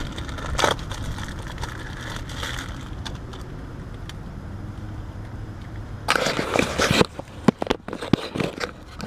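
Handling noises from work on an air conditioner's electrical parts: a single click about a second in, then a burst of rustling and clattering near the end followed by several sharp clicks and knocks. A steady low rumble runs underneath.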